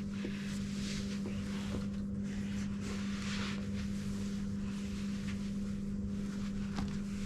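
Steady low background hum with hiss, with a few faint soft clicks and rustles.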